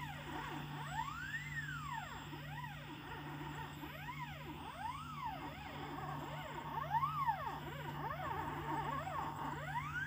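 Stepper motors of a homemade belt-driven CNC machine whining as the head moves. The pitch rises and falls with each move, about once a second, over a steady low hum.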